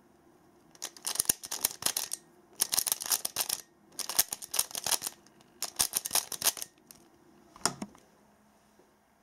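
A Pyraminx puzzle being turned fast with finger tricks: four quick runs of rapid plastic clicks, each about a second long and each a last-layer algorithm executed in one go, then a single click near the end.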